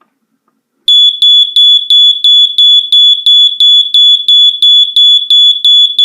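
Ademco 5808 smoke detector's built-in horn sounding: a loud, high-pitched single-tone alarm that starts about a second in and pulses rapidly and evenly, about three times a second.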